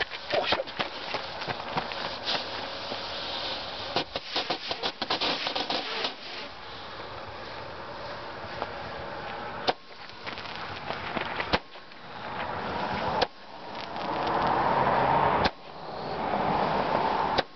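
A small consumer aerial firework going off: fast crackling pops for the first several seconds, then a string of sharp bangs about one every two seconds, with a hiss that swells between them.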